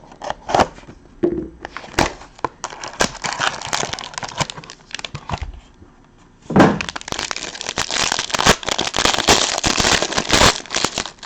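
Plastic wrapping of a box of trading cards being torn open and crumpled, in two stretches of dense crinkling and crackling, the second and louder one starting about six and a half seconds in.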